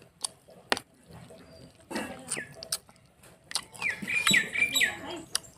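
Eating sounds of rice and curry being chewed by hand, with sharp wet mouth clicks and smacks. A bird chirps in short falling calls, a quick series of them about four seconds in.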